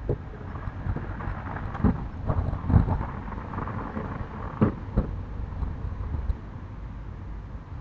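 Irregular knocks and bangs on a house's wooden storm shutters (amado), a cluster of sharp hits heaviest about three seconds in, with a last couple near five seconds, over a steady low rumble.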